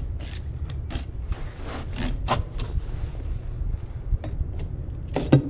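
A kitchen knife scraping and slicing along a fish on a cutting board during filleting, in a series of short strokes, with a louder knock near the end. A steady low rumble runs underneath.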